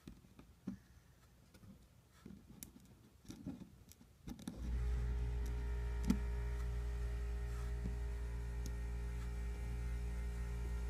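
Small clicks and taps of a screwdriver working the tiny screws of a smartphone's plastic cover. About four and a half seconds in, a steady electrical hum starts and holds.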